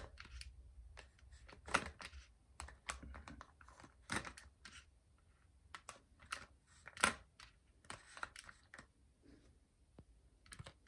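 Faint, irregular plastic clicks and clacks as a toy claw gripper is worked in a plastic cup of small plastic toy figures, knocking against the cup and toys and gripping one. The sharpest clacks come about 2, 4 and 7 seconds in.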